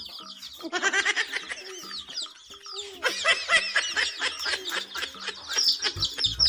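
Many young chicks peeping together: a dense, overlapping run of short, high chirps that fall in pitch, thinning briefly about two seconds in.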